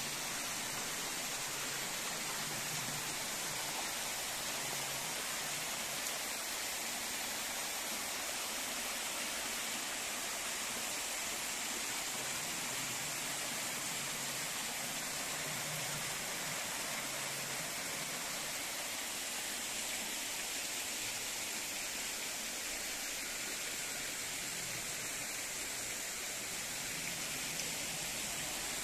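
Artificial waterfall pouring down a rock wall into a small stream that cascades over rocks: a steady, unbroken hiss of falling and splashing water.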